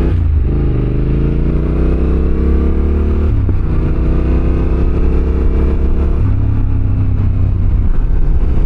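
Yamaha Ténéré 700's parallel-twin engine accelerating hard. It revs up through the gears: the pitch climbs steadily, drops at an upshift about three seconds in and again about six seconds in, then climbs once more.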